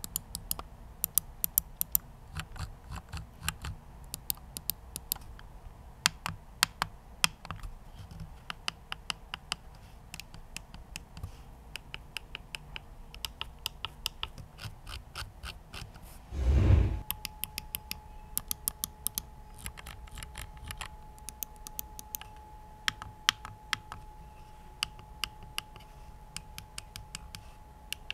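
Gaming mouse buttons clicking, irregular sharp clicks, some in quick runs: first a Mad Catz R.A.T. 8+, then a Mad Catz R.A.T. 8+ ADV. A short low thump falls about halfway through, where the mice change.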